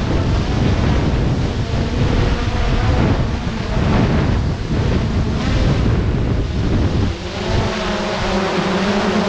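Quadcopter drone's propellers and motors running in flight, heard from a camera slung just beneath it, with wind buffeting the microphone. The steady rotor hum comes through more clearly about seven seconds in.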